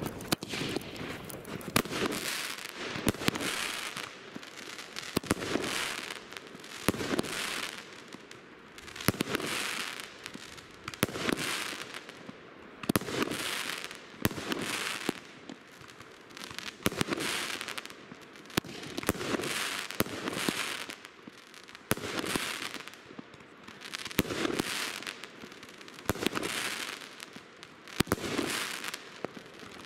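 Weco Power Up 30 mm firework battery firing shot after shot, about one every two seconds. Each shot is a sharp bang followed by about a second of crackling as the star bouquet bursts.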